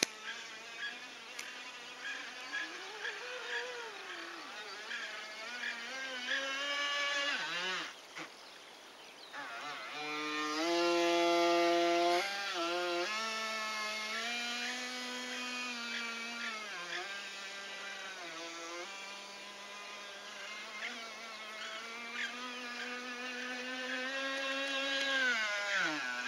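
Whine of an RC jet boat's 5800kv brushless motor driving an NQD jet unit, rising and falling in pitch with the throttle. It drops away briefly about eight seconds in, and the pitch falls near the end as the boat slows.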